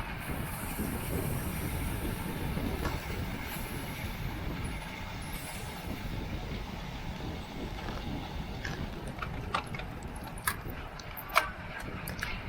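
Wind rushing over the microphone and road noise from a road bike at racing speed, with a few sharp clicks in the last few seconds.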